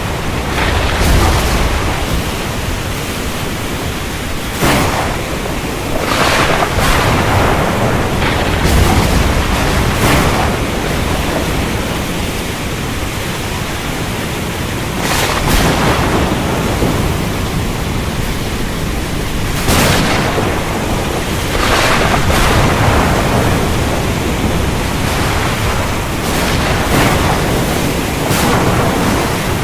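Heavy rain storm: a steady downpour with brief louder surges every few seconds and a low rumble that swells at times.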